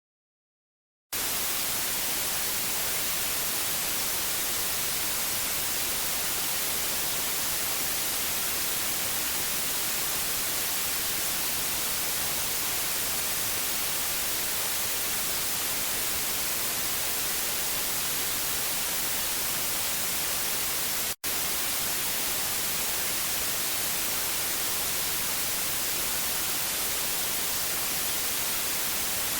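Analogue TV static: a steady, hissing white noise that starts abruptly about a second in, broken by one split-second dropout about two-thirds of the way through.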